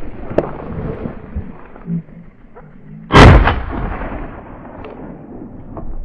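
A single shotgun shot about three seconds in: a sharp crack that fades over about half a second, with low rustling and wind noise before it.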